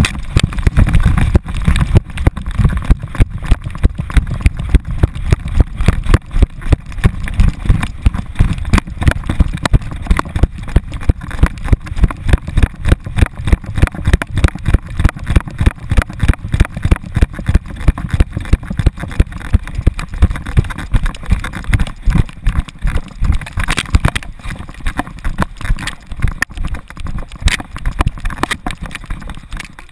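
An American Staffordshire Terrier running steadily, its stride jolting the camera strapped to its harness into a steady run of low thumps, about three a second.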